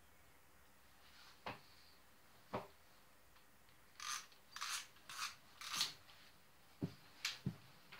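Scattered light clicks, then four quick scuffing swishes in a row about halfway through, and a few more clicks near the end, as a person moves past close to the microphone.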